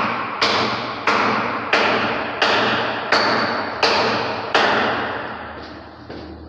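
Hammer blows struck at a steady pace, about seven in a row roughly two-thirds of a second apart, each sharp and trailing off in a long echo. A couple of lighter taps come near the end.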